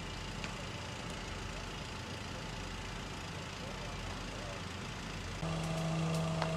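Fire appliance engines running steadily, a low hum under an even hiss. About five seconds in, a louder steady drone with a clear pitch cuts in suddenly and holds.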